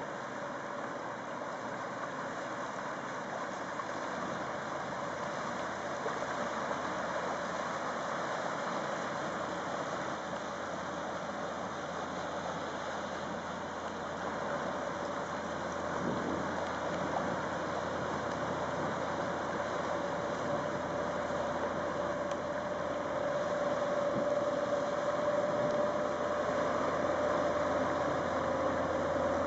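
Inland cargo barge's diesel engine running steadily with water churning along the hull, getting gradually louder as the stern passes close by; a steady engine hum comes up more strongly over the last several seconds.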